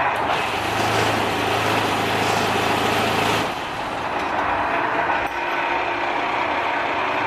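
Semi-manual paving block press with its mould vibrator running: a dense mechanical rattle over a steady low hum. The vibrator cuts off about three and a half seconds in, leaving quieter machine noise.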